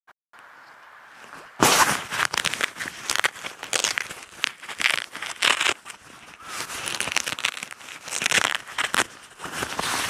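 Close rustling and scraping in irregular bursts, starting about a second and a half in: a backpack and clothing being handled right by the microphone.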